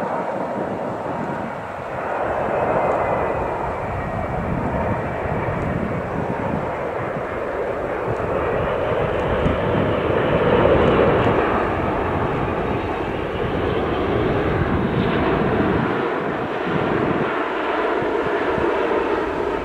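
Emirates Airbus A380's four jet engines on final approach, coming in to land: a loud, steady rush with a faint whine that bends in pitch as it passes.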